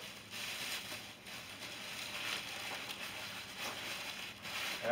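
Faint rustling and crinkling of plastic-bagged items being handled inside a cardboard box.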